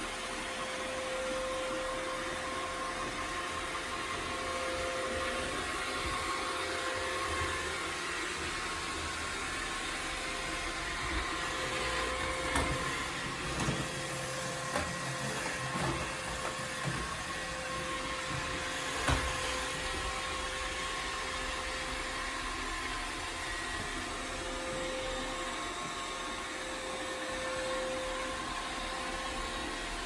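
iRobot Roomba 694 robot vacuum running across a hardwood floor: a steady whir with a humming tone that comes and goes, and a few sharp knocks around the middle.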